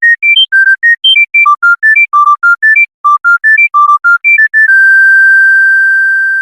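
Mobile phone ringtone: a quick melody of single electronic beep-like notes, about five a second, ending on one long held note that fades slightly.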